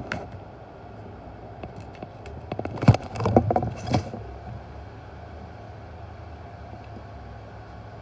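A cat pawing at a cardboard box: scratches and thumps on the cardboard, bunched together about three seconds in, over a steady low rumble of purring.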